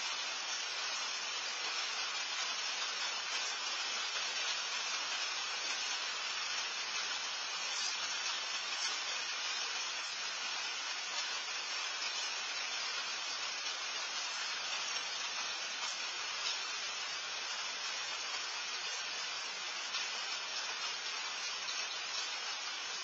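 Steady, even hiss from a security camera's microphone, with no distinct sound events.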